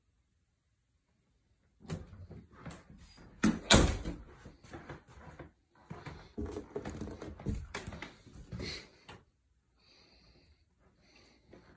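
Interior door being handled and opened: a string of clicks, knocks and rustles that starts about two seconds in, with the loudest knock a couple of seconds later, then fading to faint sounds.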